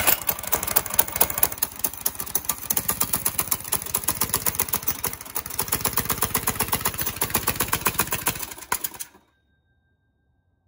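Small go-kart engine running very loud through a brass trumpet fitted as its exhaust: a rapid, steady string of exhaust pulses that cuts off suddenly about nine seconds in. The engine is struggling and barely moves the kart, choked by too little airflow through the trumpet's small mouthpiece hole.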